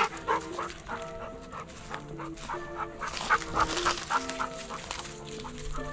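Background music with a melody of short stepped notes. Over it, a dog makes short sounds around the start and again about three to four seconds in.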